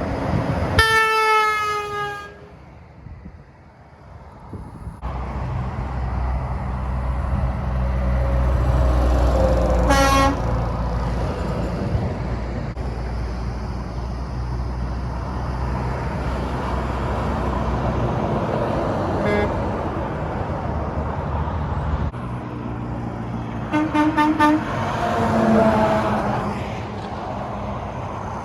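Semi-trucks passing and sounding their horns. A horn blast falls slightly in pitch about a second in, then a diesel truck engine rumbles past with a short toot around ten seconds. Near the end comes a run of short horn blasts of several notes at once.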